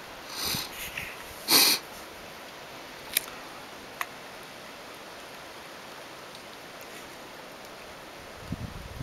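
Steady hiss of heavy rain falling at night during a thunderstorm. A few short hissing bursts come near the start, the loudest about one and a half seconds in, then two sharp clicks and a brief low rumble near the end.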